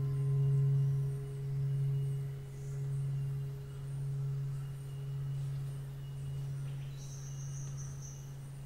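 A long, held low note from the film's music score, swelling and ebbing slowly as it fades away.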